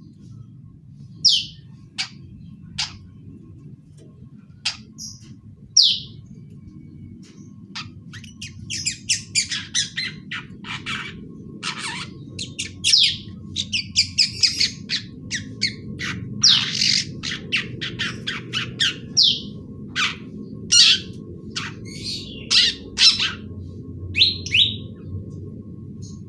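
Young long-tailed shrike chattering and practising its song: a few separate high calls at first, then a fast, dense run of short notes from about eight seconds in.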